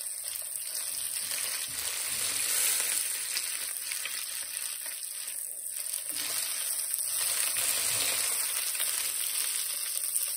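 Flour-coated Black Sea gobies sizzling steadily in hot oil in a frying pan, with forks poking and turning the fish in the pan.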